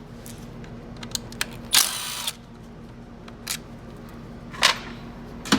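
A cordless power driver with a T40 bit whirs for about half a second, roughly two seconds in, spinning out one of the smaller transmission bolts. Short light clicks and taps of the tool and loose bolts come before and after it.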